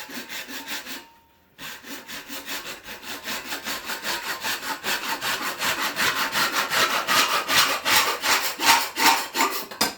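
Japanese pull saw cutting through ABS plastic drain pipe in rapid back-and-forth strokes, about four a second. It pauses briefly about a second in, then picks up again, louder, until the cut is through near the end.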